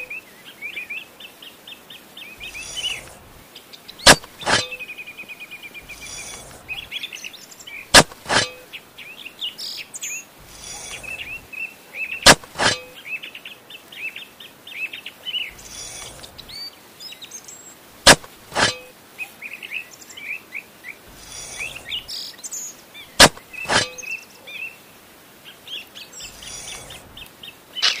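Small birds chirping and twittering without a break. Sharp clicks, often two in quick succession, come every four to six seconds and are the loudest sounds, with short soft scraping rustles in between.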